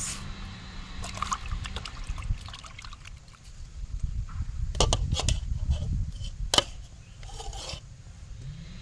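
A knife slicing a tomato held in the hand, with the pieces dropping into a pot of water in small splashes. Scattered sharp clicks come around the middle, the loudest about two-thirds of the way through, over a steady low rumble.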